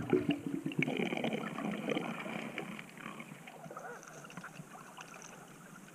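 Underwater ambience heard through a submerged camera: a soft hiss with scattered crackling clicks, growing fainter. The tail of a guitar music track fades out at the start.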